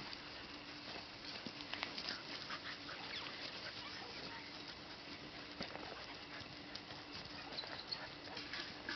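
Several puppies at play, with short high yelps and scuffling clicks scattered throughout, over a faint steady hum.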